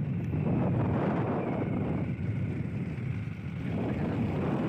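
Steady rumble of a vehicle on the move, with wind buffeting the microphone.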